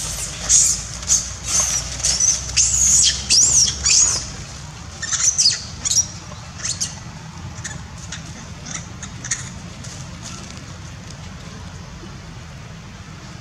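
Long-tailed macaque screaming in distress after being bitten by another monkey: a run of high-pitched screams that thins out after about four seconds, leaving a few scattered fainter cries that stop around nine seconds in.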